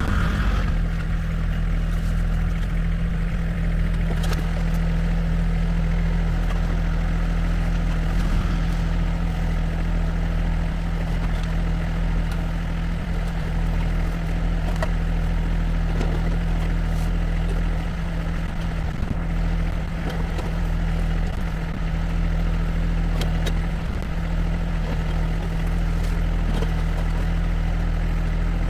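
Diesel engine of a piece of heavy farm equipment running steadily at an even speed, with a few faint knocks and clanks over it.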